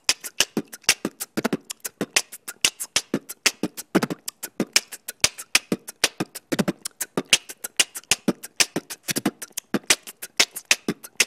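Background music made of a fast, dry percussion beat: quick clicks and taps, about seven a second, with heavier hits every second or two.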